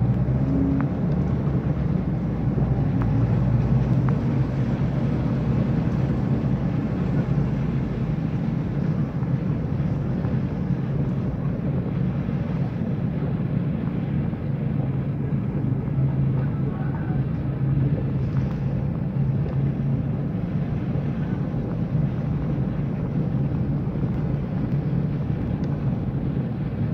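A car driving on a rain-wet street, heard from inside the cabin: steady engine and road noise.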